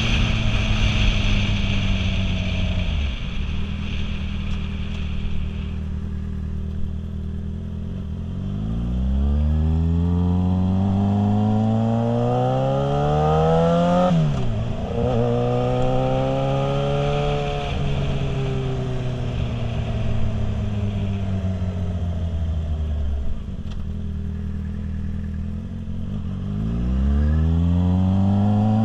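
Motorcycle engine under way, heard from the rider's seat: it runs low at first, then accelerates about a third of the way in with its pitch rising, drops sharply and climbs again about halfway through, eases off with a falling drone, and pulls away again near the end. Wind hiss over the helmet, strongest at the start.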